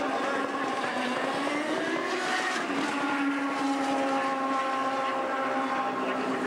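Turbocharged V8 engines of CART Indy cars running, several at once. Their pitch falls and rises, and from about halfway in one engine holds a steady note.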